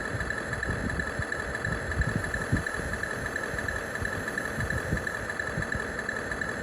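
1/18-scale T90 remote-control tank running, a steady high whine over an uneven low rumble.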